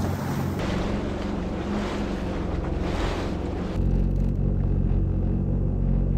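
Sea-Doo FishPro Trophy personal watercraft running at speed: engine hum under a rush of water spray and wind. About four seconds in it changes abruptly to a steadier, deeper engine hum with far less water noise, the watercraft at low speed.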